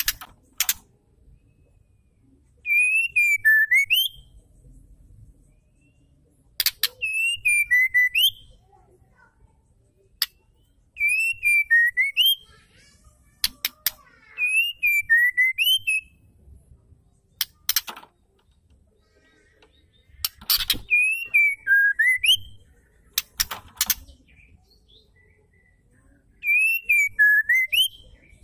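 White-rumped shama repeating the same short whistled phrase six times, about every four seconds: a clear note that dips and then sweeps up, with thin scratchy twittering above it. Sharp ticks sound between the phrases.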